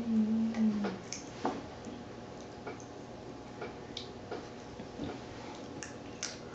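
Pop Rocks candy crackling in a child's mouth: scattered faint pops and ticks at irregular intervals. A short hummed tone from her in the first second.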